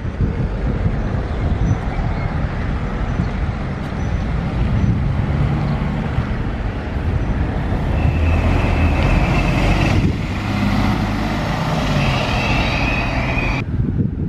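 Articulated city bus driving past close by, its engine hum building as it approaches and passes with a high whine over it, all over a constant low rumble. The sound cuts off abruptly near the end.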